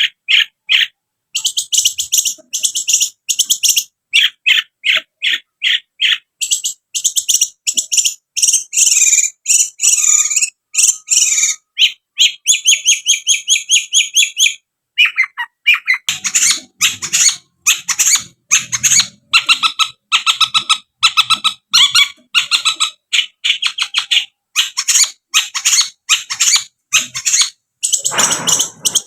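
Long-tailed shrike (cendet) singing a loud, fast song of short, sharp notes in quick runs, with an even rapid trill about halfway through.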